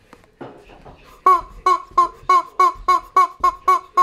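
Yellow rubber chicken toy squeezed over and over, squawking about three times a second, starting a little over a second in.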